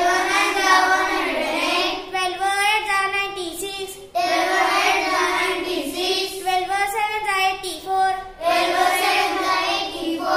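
A young girl chanting the twelve times table in English in a sing-song recitation, in phrases of a couple of seconds with short breaths between them.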